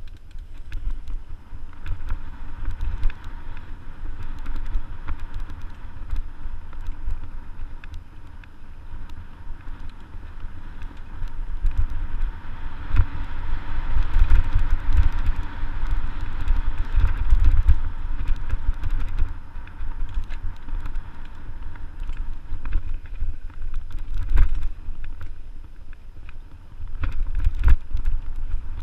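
Mountain bike ridden along a dirt singletrack trail, with a low wind rumble on the microphone, tyres rolling over dirt, and frequent clicks and rattles from the bike over bumps. The rumble is loudest around the middle and again near the end.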